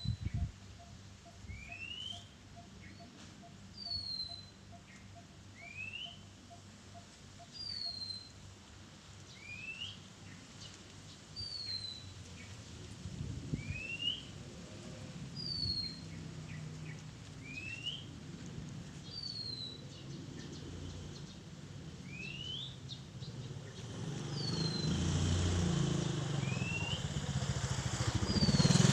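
Oriental magpie-robin singing a two-note whistled phrase, a rising note followed by a falling one, repeated about every two seconds. Over the last few seconds a low rumble grows louder.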